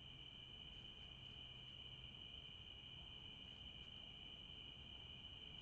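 Faint, steady chorus of crickets: a continuous high-pitched trill that doesn't let up.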